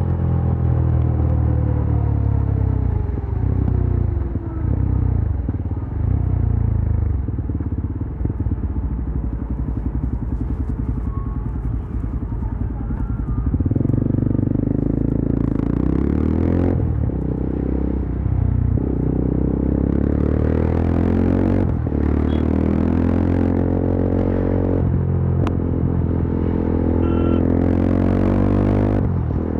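Yezdi Adventure motorcycle's single-cylinder engine and exhaust on the move: the revs fall away over the first few seconds and hold steady, then the throttle opens about halfway through. The pitch rises and falls several times after that, with short sharp breaks at the gear changes where the exhaust crackles.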